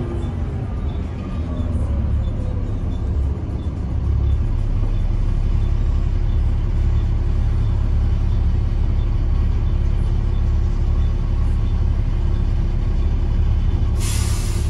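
Volvo B7TL double-decker bus heard from inside the saloon: its straight-six diesel and driveline running with a steady low rumble, a faint whine falling in pitch over the first couple of seconds, and the rumble growing louder from about four seconds in. Near the end, a short sharp hiss of compressed air from the bus's air system.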